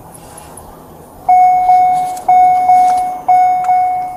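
An electronic beeper starts about a second in: a loud, single-pitch tone that breaks and restarts about once a second, with a short hitch midway through each beep.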